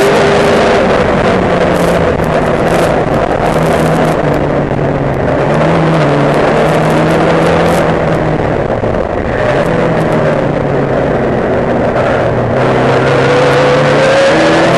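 Race car engine heard onboard, running hard at racing revs. The note eases with a slight drop in level about nine seconds in, then climbs in pitch near the end as the car accelerates.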